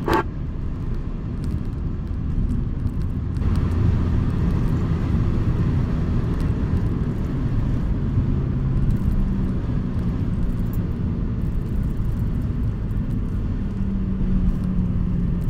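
Steady road and engine noise heard inside a moving car's cabin: a low tyre rumble with an engine hum, and a lighter hiss joining in about three seconds in.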